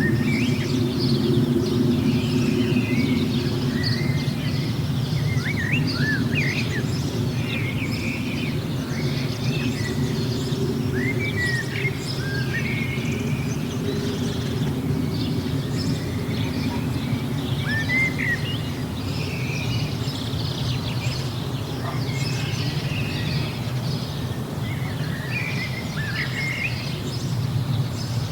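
Small birds chirping and singing in many short calls and whistles, over a steady low hum that eases slightly after the first few seconds.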